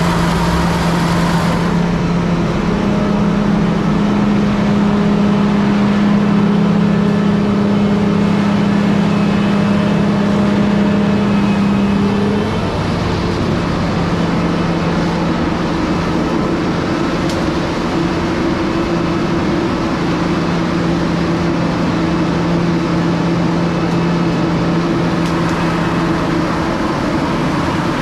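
Diesel engines of heavy seed corn harvesting machinery running steadily under load, with a droning hum. About halfway through, one engine tone drops away and the engine mix settles to a slightly different pitch.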